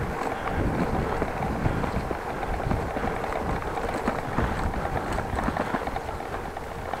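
Wind rushing over the camera microphone while riding a bicycle, with many small rattles from a battery-powered electric tool carried on the handlebars.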